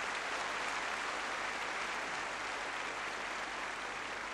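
Very large crowd applauding, a dense, even clapping that eases off slightly toward the end.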